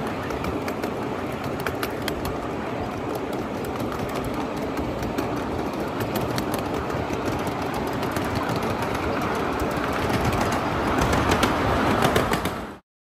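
1/8-scale ride-on miniature train rolling along the track: a steady rumble with scattered sharp clicks of wheels on the rails. It grows louder near the end, then cuts off suddenly.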